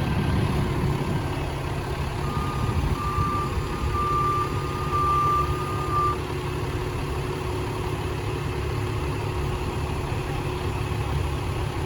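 Heavy truck engine running steadily during a tow truck's lift of a loaded concrete mixer, with a backup alarm beeping about seven times over some four seconds, starting about two seconds in.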